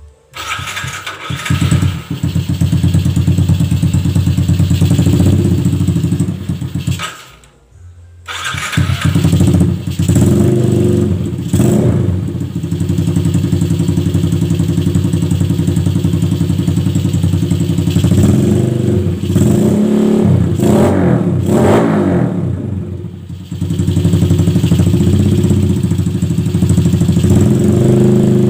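Yamaha Jupiter Z motorcycle's four-stroke single-cylinder engine, breathing through a long under-engine racing silencer, starts up and idles. It falls silent about seven seconds in and is started again about a second later, then is revved in several short bursts before settling back to a steady idle.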